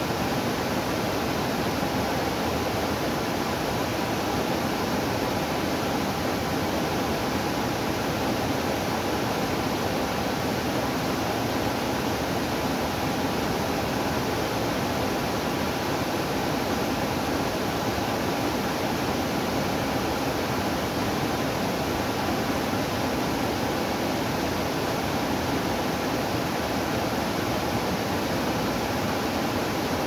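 Small waterfall pouring over rocks into a pool: a steady, unbroken rush of falling water.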